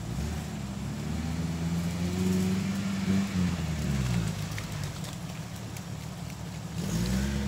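Chevy Tracker's engine revving as it drives through mud, rising in pitch over the first few seconds, dropping back about four seconds in, and revving up again near the end.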